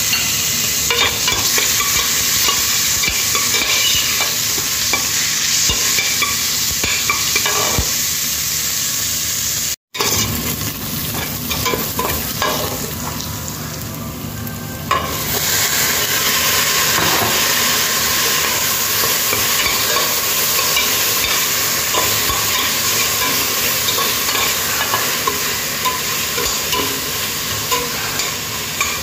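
Food sizzling in a frying pan while it is stirred, with scrapes and clicks of the utensil against the pan. The sizzle cuts out for an instant about ten seconds in, then runs quieter for a few seconds before coming back louder.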